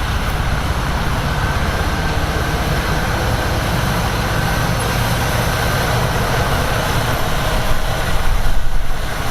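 Heavy diesel machinery running steadily with a loud low drone, swelling briefly about eight seconds in.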